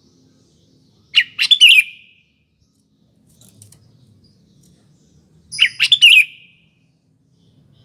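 Sooty-headed bulbul (kutilang) singing two short, lively phrases of quick whistled notes, about four seconds apart.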